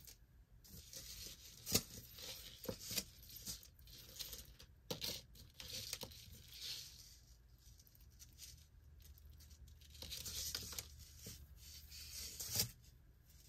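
Faint rustling and shuffling of a knotted cord-and-chain necklace being handled and untangled on a cloth-covered table, with a few sharp clicks as metal pieces knock together.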